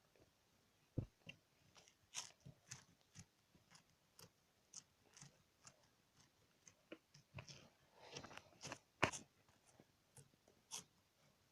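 Slime being worked by hand, giving faint, irregular sticky clicks and pops, a few of them louder.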